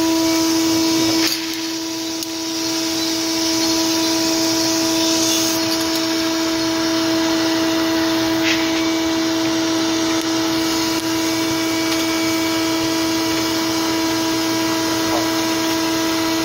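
Shop vac pulling air through a sieve-and-bucket cooler full of freshly roasted coffee beans: a steady motor hum under a rush of air. The sound dips just over a second in, then builds back.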